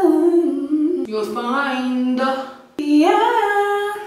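A woman singing unaccompanied in long held notes that step up and down, drawing the words "you'll find" out over three short phrases.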